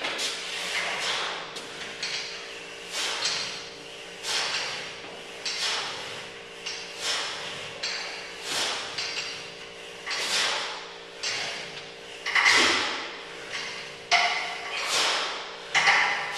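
A man breathing hard in a steady rhythm, one forceful exhale about every second and a half, through a set of tricep extensions. The last few exhales turn into short grunts of effort. A faint steady hum sits underneath.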